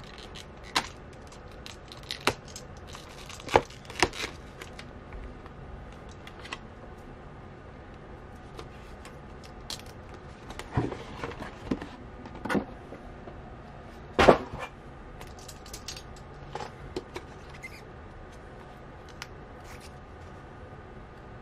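Shrink-wrapped phone box being slit with a utility knife and handled in a cardboard shipping box: scattered crinkles, clicks and taps of plastic film, knife and cardboard. The loudest is a sharp knock about 14 seconds in.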